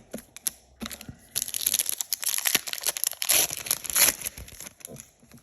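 Foil trading-card pack wrapper crinkling and tearing as it is opened, loudest from about a second and a half to four seconds in, with a few light clicks of card handling around it.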